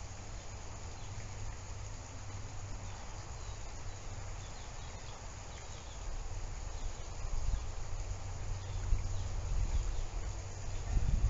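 Outdoor ambience: a steady low hum and rumble with faint high chirps. The rumble grows louder and more uneven after about six seconds.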